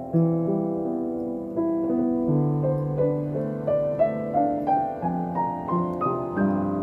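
Solo piano playing a slow, gentle melody over sustained low bass notes, each note struck and then fading, about two notes a second.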